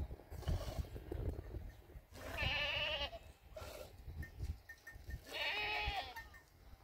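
Goats bleating: two calls about three seconds apart, each about a second long with a quavering pitch.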